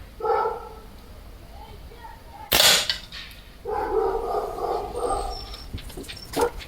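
A single shot from a Weihrauch HW97K spring-piston air rifle, a sharp crack about two and a half seconds in. A dog barks once just before it and gives a longer drawn-out call about a second after it.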